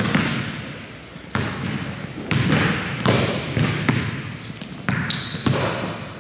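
Basketball being dribbled on a wooden gym floor: uneven bounces, roughly one or two a second, each echoing briefly in the hall. A short high squeak comes about five seconds in.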